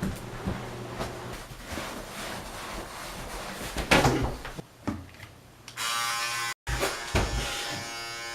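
A couple of knocks or bumps, then a steady electric buzz from about six seconds in, broken by a brief cut-out and a thump.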